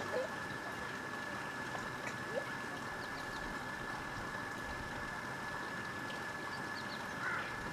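Steady outdoor background hiss with a faint constant high whine running through it. A few brief, faint rising calls come through it, once just after the start and again about two and a half seconds in.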